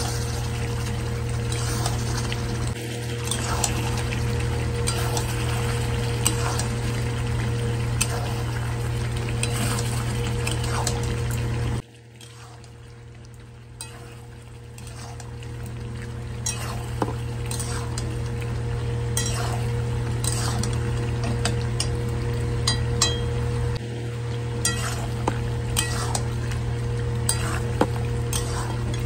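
A metal spatula scraping and clinking against a steel kadai as chicken pieces are stir-fried in thick masala, with frying sizzle: the kosha stage of a chicken curry. A steady low hum runs underneath, and about twelve seconds in the sound drops away suddenly and builds back over a few seconds.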